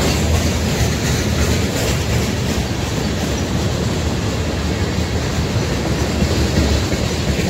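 Freight train of tank cars rolling past: a steady rumble and clatter of steel wheels on the rails, even throughout.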